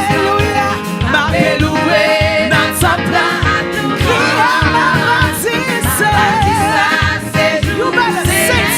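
Gospel praise song sung by a woman lead singer with a backing band, with drums keeping a steady beat under the wavering vocal line.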